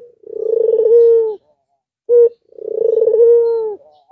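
Albino ringneck dove (puter) cooing: two calls, each a short note followed by a long rolling coo about a second long.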